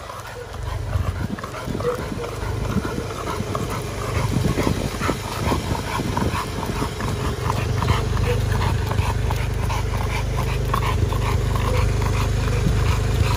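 A large bully-breed dog panting hard in quick, rhythmic breaths as it runs beside a bicycle, over a steady low rumble that grows from about eight seconds in.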